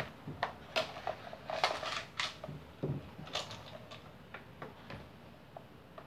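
Light clicks and knocks of a pedestal fan's plastic column and housing being handled while the motor's wire is pulled out through it. The taps come thick at first and thin out after about three seconds.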